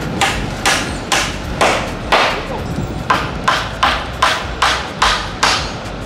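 Hammer driving nails into a timber frame: about a dozen sharp blows, a little over two a second, with a short pause near the middle.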